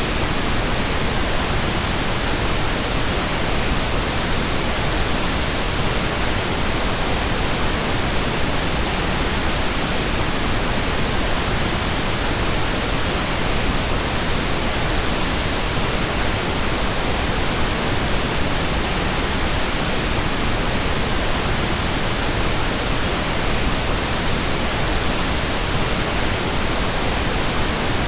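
Steady, unchanging pink noise: an even hiss spread across the whole range of pitch, with no tones or breaks.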